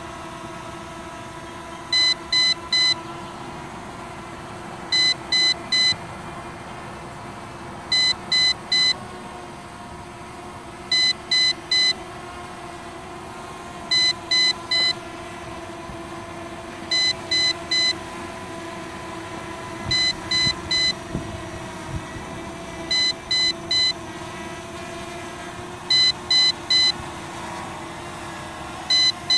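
Groups of three short, high beeps repeating about every three seconds: a low-battery warning. Under them is the steady hum of an MJX Bugs B7 quadcopter's brushless motors and propellers as it hovers.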